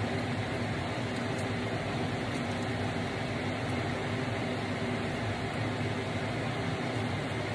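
Steady whir of a fan running, with a faint low hum under it.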